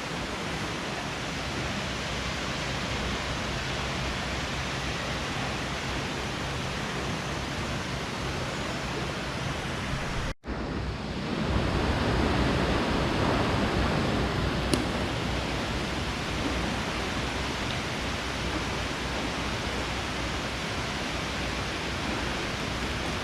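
Steady outdoor rushing noise with no distinct events. It cuts out for an instant about ten seconds in, then comes back slightly louder for a few seconds.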